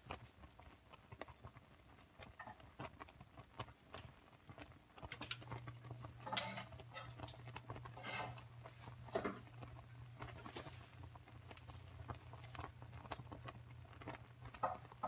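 Faint, irregular popping and ticking from pots cooking on a stovetop. A low steady hum starts about five seconds in, and a sharper tap comes near the end as garlic cloves go into the aluminium pot of oil.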